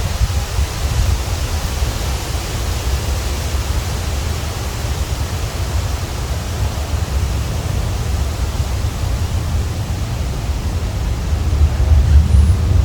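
Wind blowing through autumn trees: a steady rushing hiss of leaves over a low rumble of wind buffeting the microphone, gusting stronger near the end.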